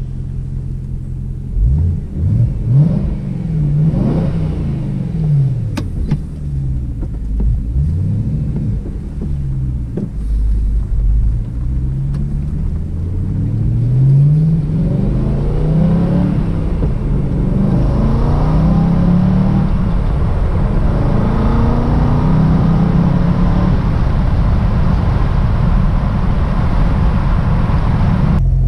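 BMW E92 M3's S65 V8 with an M Performance exhaust, heard from inside the cabin while revving and accelerating. The engine pitch climbs and drops again and again, higher and louder in the second half.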